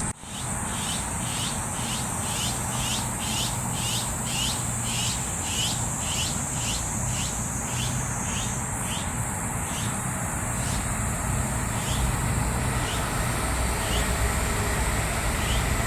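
Outdoor insect chorus: a steady high-pitched drone, with a run of short rising chirps repeated about twice a second that thins to occasional chirps after about eight seconds, over a low background rumble.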